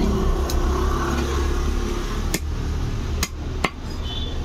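A long butcher's knife chopping through raw chicken onto a wooden stump block: four sharp chops at uneven intervals, the last two close together, over a steady low hum.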